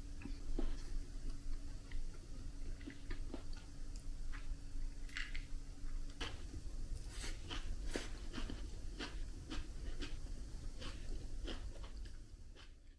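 Eating sounds: chopsticks clicking against a bowl of raw sliced mushroom salad, then bites and chewing of a slice of toast, a string of short sharp clicks and crunches. A faint steady hum runs underneath and stops about six seconds in.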